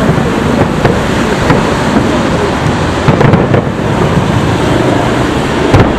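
Aerial fireworks shells bursting one after another, a continuous booming rumble. Sharper bangs stand out about a second in, around three seconds in, and loudest near the end.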